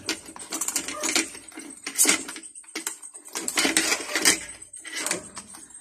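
A long knife and carving fork sawing through roast pork skin and meat, with irregular scrapes and clicks of the blade and tines against the plate, loudest about two seconds in and just after four seconds.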